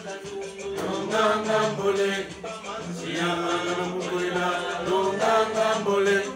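Music with voices singing in long held notes, like a chant.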